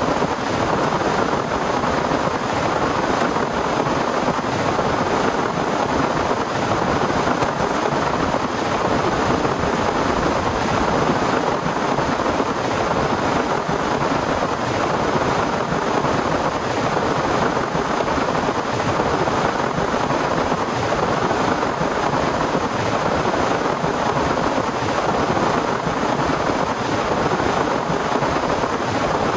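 Heavy rain pouring down steadily, a dense even downpour.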